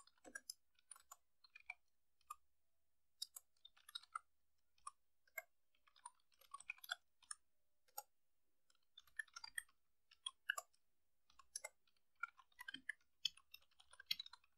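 Faint computer keyboard keystrokes, typed in irregular runs of clicks with short pauses between them.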